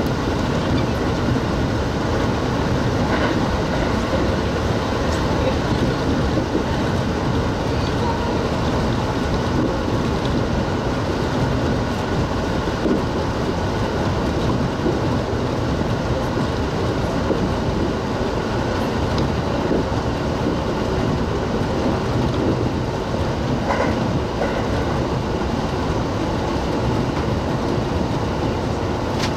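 Kintetsu electric express train running on the line, heard from the front of the train: a steady rumble of wheels and track with occasional faint rail clicks.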